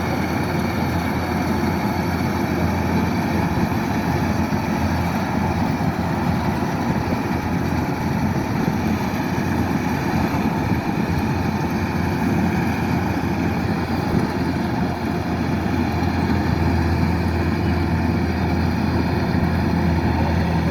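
Kubota DC-108X combine harvester running steadily, its diesel engine and machinery making a constant low mechanical drone.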